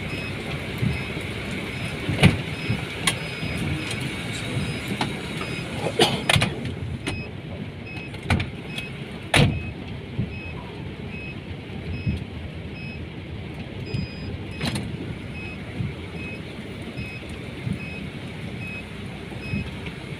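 Inside a vehicle driving slowly on wet streets: steady engine and road rumble with tyre noise. Several sharp knocks and rattles from the body are heard at irregular moments.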